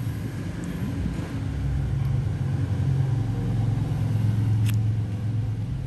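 A steady low motor rumble, like a vehicle engine, building up about two seconds in and easing off near the end, with one short sharp click about three-quarters through.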